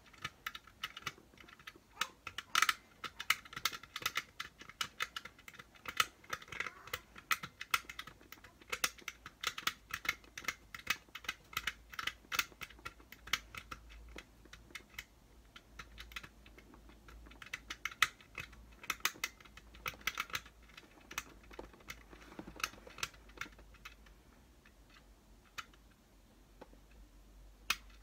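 Rapid, irregular clicking from the time-setting wheel of a battery-powered clock, turned by hand to move the hands, with light handling of its plastic case. The clicks thin out after about twenty seconds.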